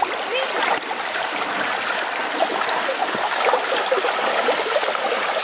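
Shallow creek running over a rocky bed, a steady babbling and trickling.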